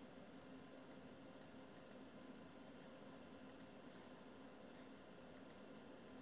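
Near silence with faint computer mouse clicks, a few short clicks in close pairs every second or two, over a low steady room hum.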